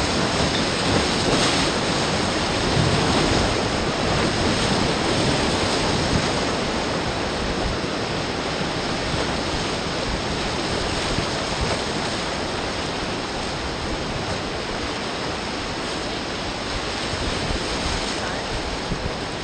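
Whitewater rapids rushing all around a raft as it runs through them: a steady, loud rushing of water, a little louder for the first few seconds.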